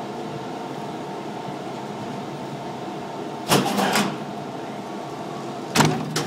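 Steady hum of the Gateway Arch tram car as it climbs, its ventilation and drive machinery holding several steady tones. Two loud clattering knocks break in, about three and a half seconds in and again near the end.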